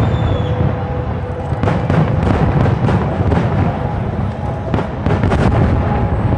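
Aerial fireworks shells bursting in a rapid series of booms and crackles over a continuous low rumble.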